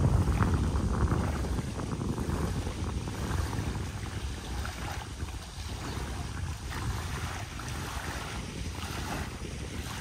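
Wind buffeting the microphone with a low rumble, strongest at the start and easing off over the first few seconds, over small waves washing on a lakeshore beach.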